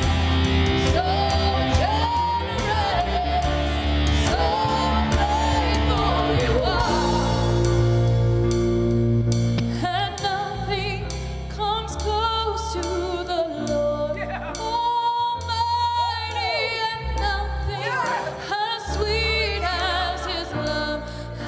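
Gospel music: a singer over a band with sustained bass notes and a steady beat.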